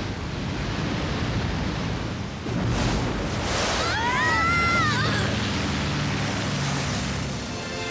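Animation sound effects of a ship skimming over water: a steady rush of water and spray, with a brief rising-then-falling whine about four seconds in and a low drone underneath in the second half.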